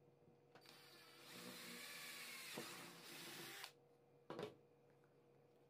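Electric drill running for about three seconds as it bores a hole through a small part, its whine wavering slightly, then stopping suddenly. A short clack follows about half a second later.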